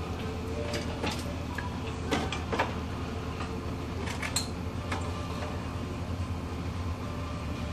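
Scattered short metallic clicks and clinks from hands and tools working on the timing-belt pulleys of a Toyota 3.0 V6 engine, over a steady low hum.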